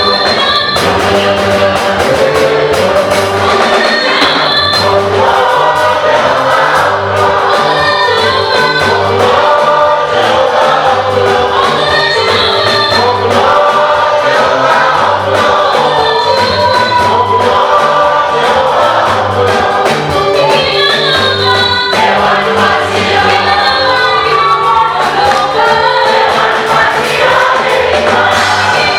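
Choir singing an African gospel song over band accompaniment, with a steady bass pulse.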